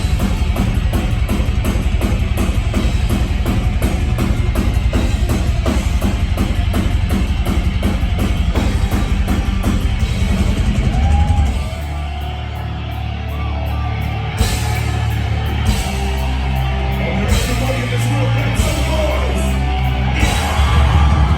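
Heavy metal song: fast, dense drumming on a drum kit over distorted guitars, dropping about eleven seconds in to a sparser section with sustained low notes.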